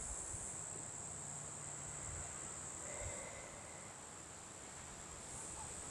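A steady, high-pitched insect chorus, droning without a break.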